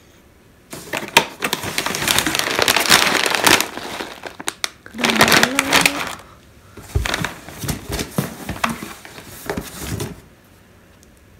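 Crinkling and rustling of a plastic snack bag being handled and pulled out of a cardboard box, with light knocks and scrapes of cardboard, in several bursts that stop about ten seconds in.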